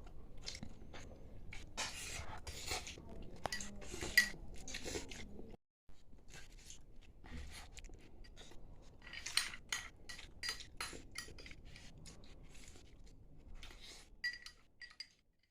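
Eating sounds: a spoon clinking and scraping against a plate, with chewing of rice.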